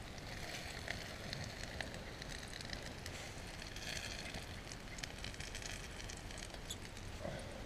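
Campfire crackling, with fry bread frying in a small skillet over the coals: a steady hiss scattered with small pops that thickens around the middle.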